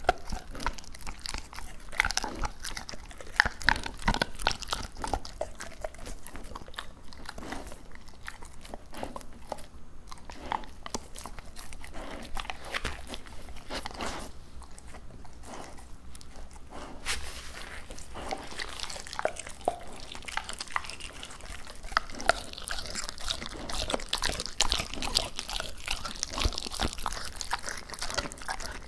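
Labrador retriever biting and chewing raw duck close to the microphone: a run of short, sharp crunches and gnawing. The bites thin out in the middle and come thicker again in the last third.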